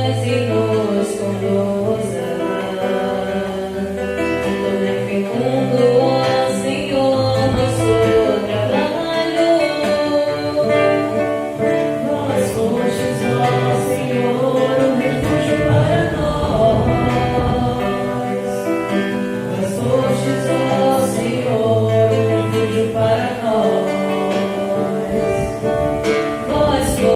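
Church music: the sung psalm's accompaniment, with guitar and singing, playing on steadily.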